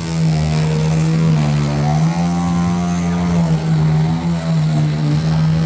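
A motor runs steadily with an even, unbroken hum that wavers slightly in pitch, typical of a power tool or small machine running on a tiling job.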